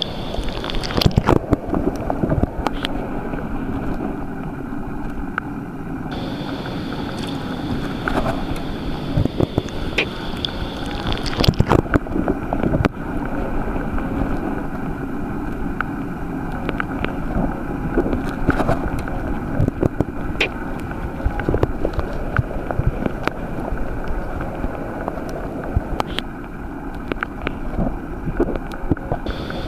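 Underwater ambient noise: a steady low rush of water with scattered irregular clicks and crackles, and a faint high steady tone that comes and goes.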